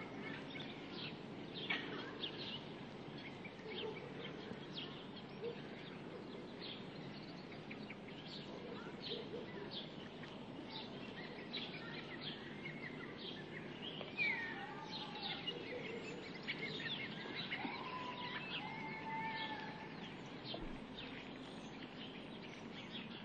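Birds chirping and calling over a steady outdoor background hiss: many short chirps throughout, with a few longer whistled notes in the second half.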